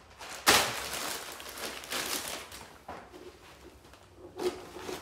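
Plastic packaging rustling and crinkling as a vacuum dust bag is handled and unpacked, starting sharply about half a second in and going on for about two seconds. A short knock near the end.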